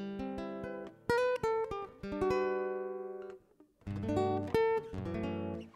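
Background guitar music: plucked notes and strummed chords, with a brief pause about three and a half seconds in.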